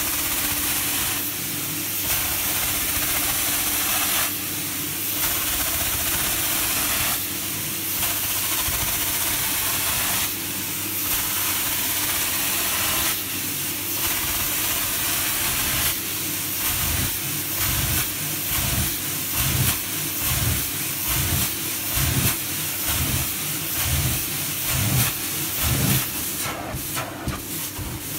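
Carpet extraction machine's vacuum hissing through a stainless-steel floor wand as it is drawn across wet carpet, the hiss dipping briefly with each stroke about every three seconds. Irregular low thuds run under it in the second half.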